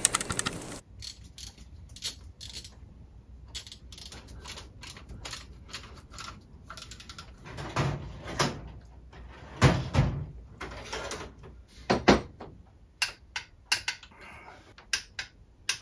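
Hand tools clicking and knocking on metal while working on a car engine's new belt tensioner, with ratchet clicking as its two mounting bolts are tightened. The clicks come irregularly, with a few louder metallic knocks about ten and twelve seconds in.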